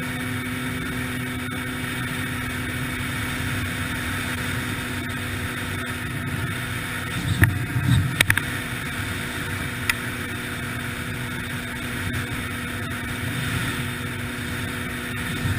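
A 2003 Yamaha TTR-125LE's single-cylinder four-stroke engine running at a steady pitch. A few sharp knocks come about halfway through, with a single one shortly after.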